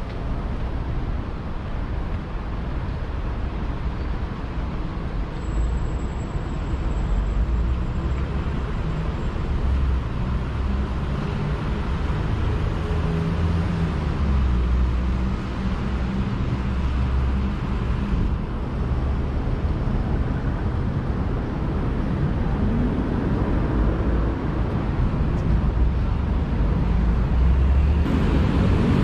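Road traffic going by: a steady low rumble of passing vehicles.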